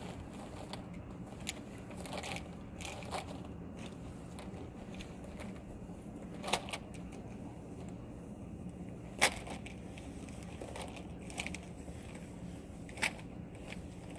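Black polyethylene tubing being uncoiled and laid out in loops by hand: scattered plastic clicks and crackles, the sharpest about nine seconds in, over a low steady hum.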